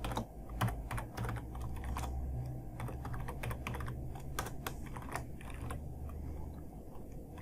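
Typing on a computer keyboard: irregular keystroke clicks, a few a second, over a steady low hum.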